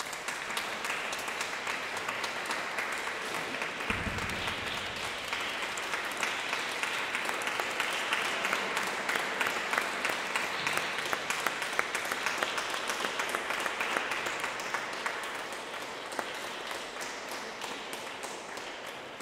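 Audience applauding: steady clapping that fades away near the end, with a brief low thump about four seconds in.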